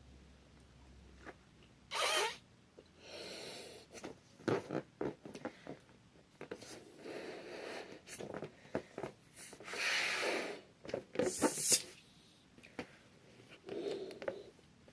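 Latex balloons being handled and tried out, giving short irregular bursts of rustling and rubbing with a few clicks.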